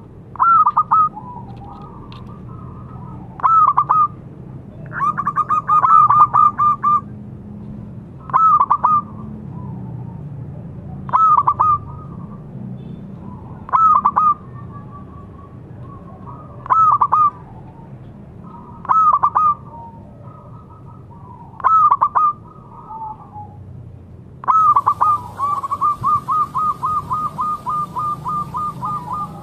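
Zebra dove singing its cooing song: short, loud phrases repeated about every two to three seconds. Twice, about five seconds in and again near the end, the phrase runs on into a long string of quick repeated notes.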